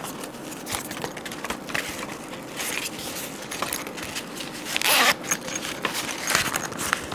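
Zipper of a Topo Designs Mountain Accessory Bag, a small pouch, being worked open with handling rustle, in a series of short strokes; the longest and loudest stroke comes about five seconds in.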